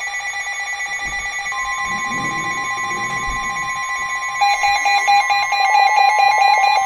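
Emergency alert tones from several receivers overlapping: steady electronic alarm tones, with another tone joining about a second and a half in, and a rapidly pulsing beep coming in louder about four and a half seconds in.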